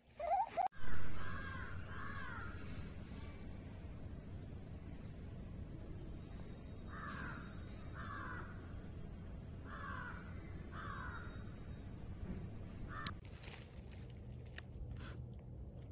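A crow cawing, harsh calls in short series about a second apart, over steady outdoor background noise.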